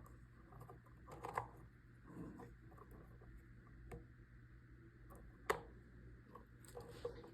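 Faint scattered clicks and rustles of small wires and alligator clips being handled, with one sharper click about five and a half seconds in, over a low steady hum.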